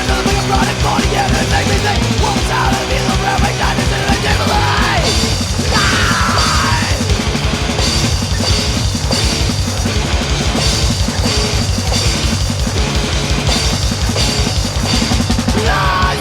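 Hardcore punk band playing an instrumental passage: distorted electric guitars, bass and a fast, driving drum kit beat.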